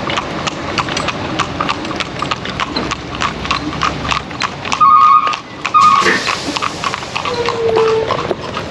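A carriage horse's hooves clip-clopping steadily on a paved street. About halfway through come two short, loud beeps.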